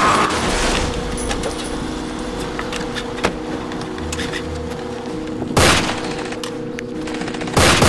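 Gunfire sound effects: scattered single shots, then two short, loud bursts of fire, one about five and a half seconds in and one near the end. A steady low drone runs underneath.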